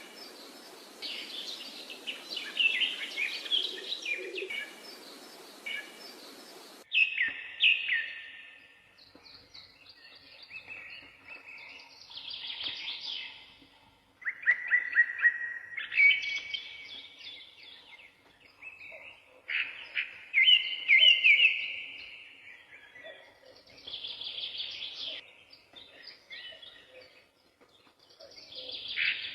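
Small birds chirping in short, rapid bursts of trills and tweets, with brief pauses between the bursts. A background hiss under the first few seconds cuts off abruptly about seven seconds in.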